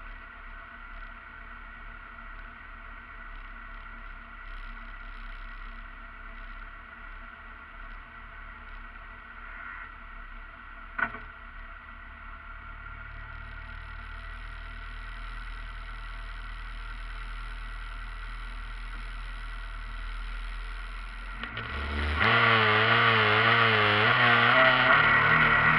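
Rally car engine heard from inside the cabin, ticking over quietly at the start line, with one sharp click about 11 seconds in. About 22 seconds in it is revved hard and the car launches, the engine note stepping up in pitch as it accelerates away.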